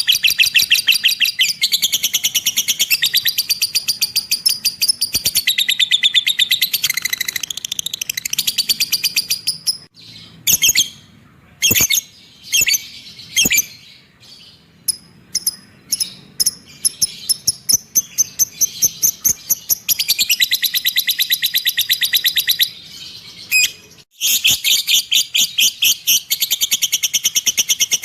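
Lovebird ngekek: long bouts of very rapid, high-pitched chattering notes. A few seconds of separate, spaced chirps break the bouts in the middle.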